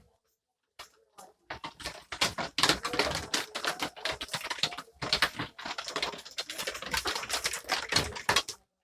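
Goats' hooves clattering on the pen floor: a dense, irregular run of rapid taps and knocks that starts about a second and a half in.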